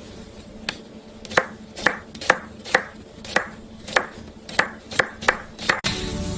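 A knife chopping food on a cutting board: about eleven sharp, separate chops at roughly two a second, slightly uneven.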